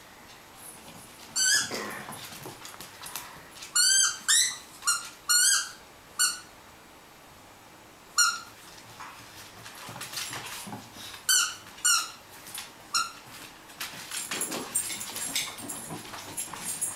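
A Staffordshire bull terrier puppy chomping a squeaky tennis ball, giving about ten short, sharp squeaks in quick clusters. Softer scuffling noise comes in between the squeaks and near the end.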